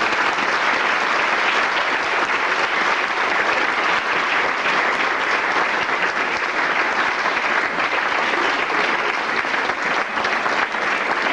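Audience applauding steadily, a dense clapping that carries on without a break.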